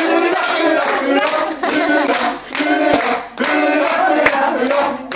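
People singing a song together, with hand claps among the singing.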